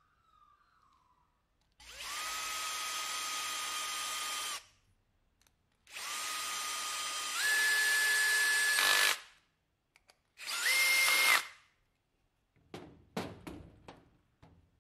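Makita 18 V cordless drill running in three bursts of steady whine; in the second burst the pitch steps up partway through, and the third, short burst is the highest. A few light clicks and rattles of small parts being handled follow near the end.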